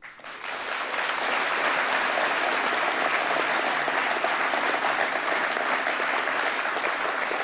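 Large audience applauding in a hall, building over the first second and then holding steady.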